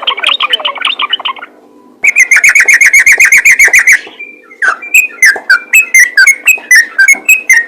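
Yellow-vented bulbul (trucukan) singing in rapid 'ropel' style. A fast run of chirping notes, a short pause about a second and a half in, another fast run, then slower, sharp notes falling in pitch, about three a second.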